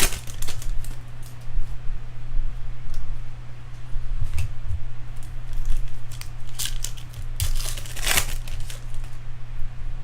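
A Bowman Chrome baseball card pack's wrapper being torn open and crinkled, with a run of short sharp crackles and rustles, thickest about three-quarters of the way through. A steady low hum runs underneath.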